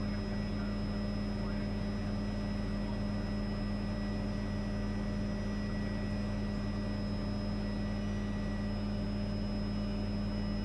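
Helicopter cabin noise in flight: the steady drone of the engine and rotor, with a thin high whine held at one pitch throughout.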